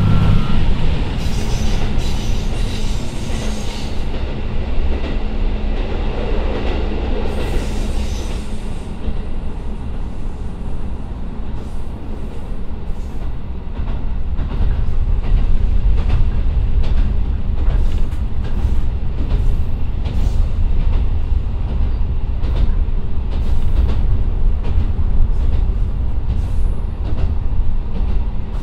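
JR Kyushu KiHa 125 diesel railcar running along the line, heard from inside the car: the engine's loud drone falls away at the start, leaving a steady rumble of wheels on rail with regular rail-joint clicks. There is some higher hiss and squeal in the first few seconds.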